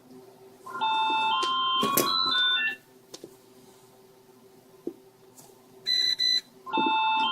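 Electronic beeping tones stepping through several pitches, lasting about two seconds. The same pattern comes again near the end, after a few short beeps.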